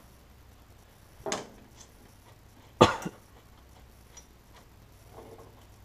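A few sharp metallic clicks and knocks of a nut and hand tools being handled, the loudest a little under halfway through with a smaller one just after it.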